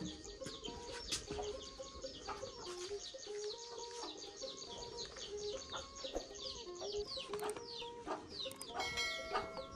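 Birds chirping, many short quick falling calls, over a line of held notes that step up and down like a simple tune.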